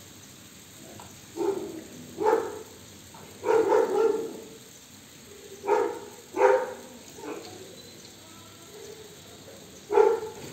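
A dog barking: about nine short barks in irregular groups, with pauses of up to a couple of seconds between them.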